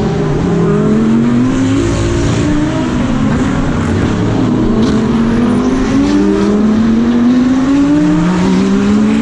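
GT3 race car engine heard from onboard, its revs repeatedly climbing under acceleration and falling under braking and gear changes through a series of corners.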